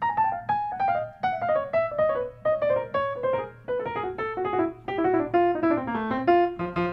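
Background music: piano playing a quick run of notes, the melody stepping steadily downward.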